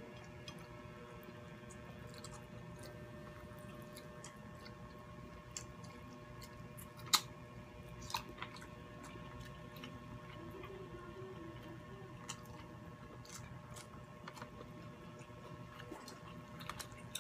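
Quiet chewing and small wet clicks of people eating baked prawns and rice with their hands, over a faint steady hum. A sharp click about seven seconds in is the loudest sound, with another about a second later.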